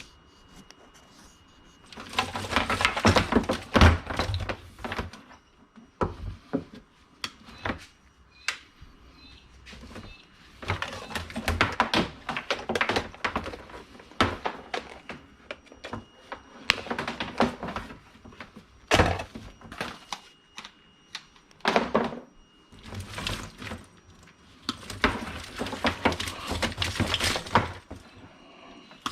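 Scrap being handled and sorted by hand: bursts of rustling and scraping with sharp knocks and thuds in between.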